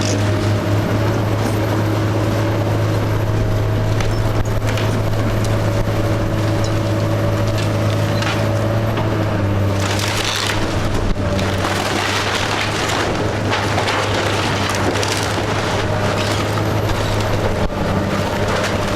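A wood-frame house being torn down by heavy machinery: an engine runs steadily underneath while timber is crushed and splintered, with many irregular cracks and crunches.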